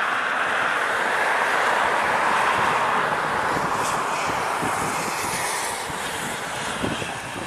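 Twin-turboprop airliner's engines and propellers running on the runway, a steady rushing roar that eases off slightly in the second half.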